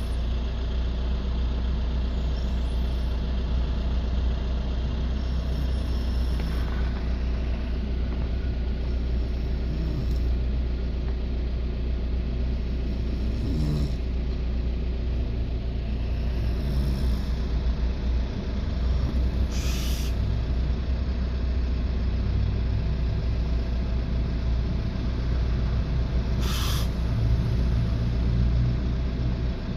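Vehicle engine idling steadily with a deep, low rumble. A few brief sharp noises come twice in the second half and again near the end.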